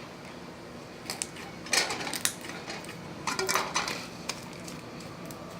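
Sticky bubblegum slime being squished and poked by hand for ASMR: short clusters of wet clicking and crackling pops, in three or four bursts.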